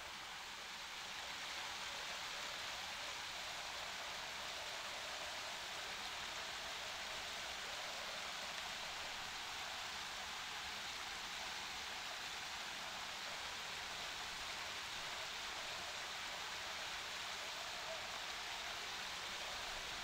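Small waterfall on a rocky stream, water splashing steadily down the rocks into a shallow pool: an even hiss with little low rumble.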